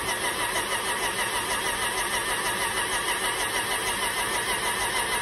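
Sea-Doo Challenger boat engine turned over on its electric starter with the spark plugs removed and fuel cut off: a steady, evenly pulsing cranking that never catches. This is the fogging step of winterizing, pumping fogging oil through the cylinders.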